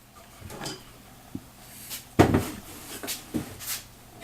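Wooden box parts being handled and pushed together for a dry fit of the friction-fit top: a few light wooden taps and scrapes, with one loud knock about two seconds in.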